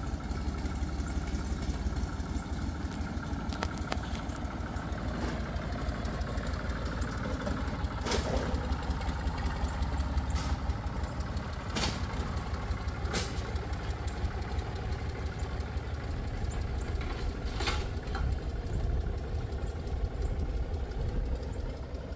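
Old farm tractor engine running steadily with a low rumble, with a few sharp clicks over it.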